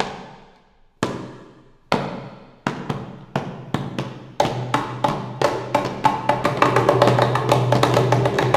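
Sharp percussive strikes played as music, each ringing off. They come faster and faster until they pile up into a dense, ringing texture with a low steady hum beneath it from about four seconds in.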